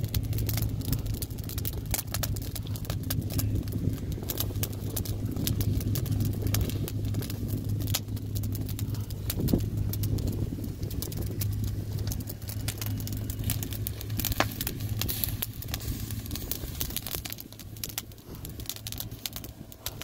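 Split-wood fire crackling and popping, with a steady low hum underneath that fades near the end.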